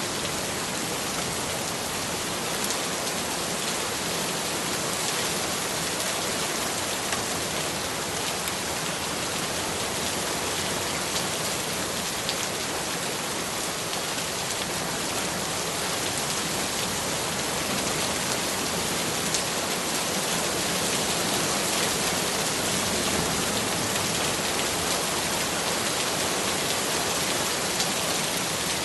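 Steady rain falling, a dense even hiss of many drops at a constant level.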